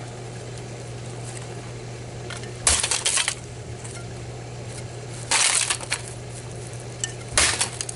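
A metal bat smashing into a broken plastic landline phone three times, each blow a sharp crack followed by a brief clatter of loose parts, over a steady low hum.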